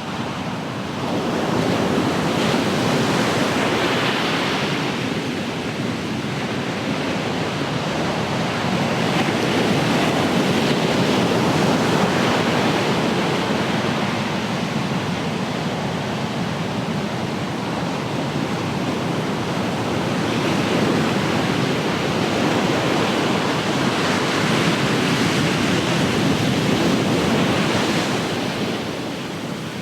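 Ocean surf: waves breaking and washing ashore, the rush rising and easing every several seconds.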